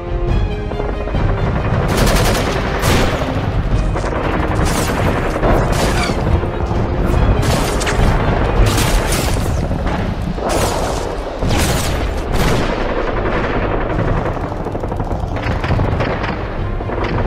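Battle sound effects: gunfire and explosions in irregular bursts, starting about two seconds in, laid over dramatic music.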